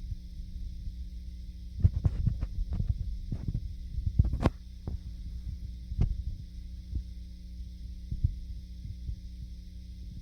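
Dull thuds and knocks from the floor above, heard through the ceiling: a quick cluster about two to four and a half seconds in, the loudest near the end of it, then single thumps around six and eight seconds. A steady low hum runs underneath.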